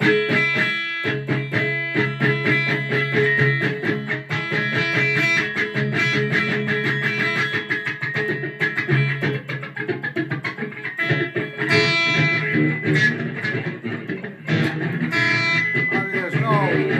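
Stratocaster-style electric guitar strumming chords in a quick, steady rhythm. A man's voice starts singing over it near the end.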